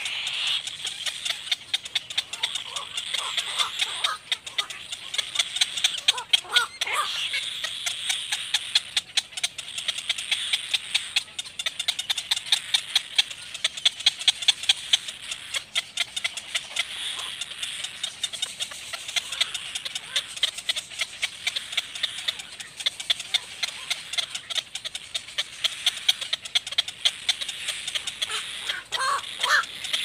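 Cormorant chicks begging in the nest: a continuous high, rasping chatter full of rapid clicks, with a few lower calls about three to seven seconds in and again near the end.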